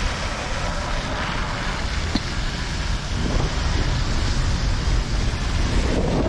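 Wind rumbling on the microphone of a camera carried on a moving bicycle, mixed with road traffic on a wet, snowy street.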